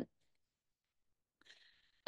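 Near silence in a pause between sentences, with a faint breath near the end.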